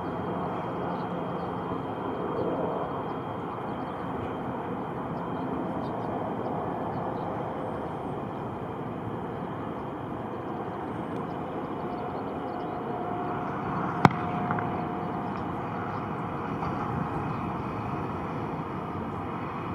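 Steady aircraft engine noise, with one sharp click about fourteen seconds in.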